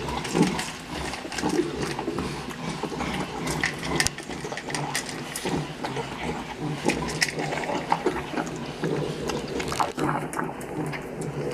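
Animals snuffling and eating greedily, with irregular smacking and clicking sounds throughout.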